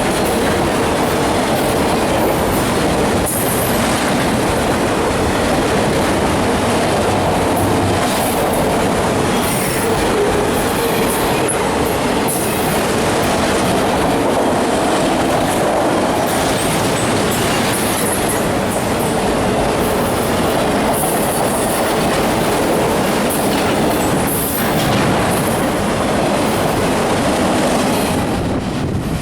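CSX freight train cars rolling past close by: a loud, steady rumble of wheels on rail, with repeated clicks and brief high squeals from the wheels.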